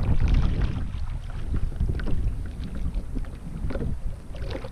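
Wind rumbling on the microphone, with choppy sea water lapping and splashing irregularly against the hull of a sit-on-top kayak.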